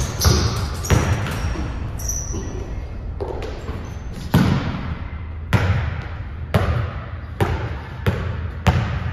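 Basketball bouncing on a gym floor in a large hall, sharp thuds that settle into a dribble of about one bounce a second in the second half, with short sneaker squeaks in the first two seconds.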